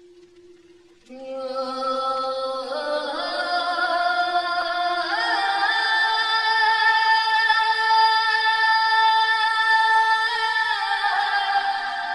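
Background music: a singing voice holding long notes that slide from one pitch to the next, faint at first and much louder from about a second in.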